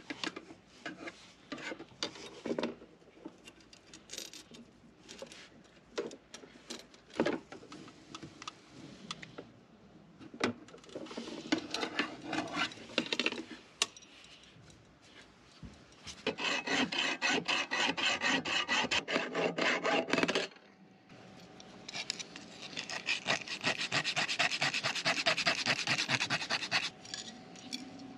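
Hand file rasping across a small metal tube, the diesel heater's fuel pickup pipe, in two long runs of quick, even strokes. Before them come scattered scrapes and clicks of tool work.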